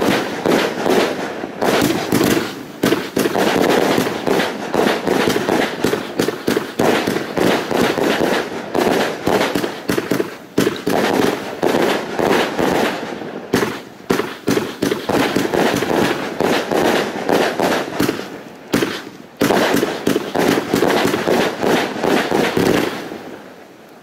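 A 56-shot Funke Weißblinker-Rot Z-1 fanned firework battery firing rapidly: a dense, unbroken run of shots and bursts that tails off about a second before the end.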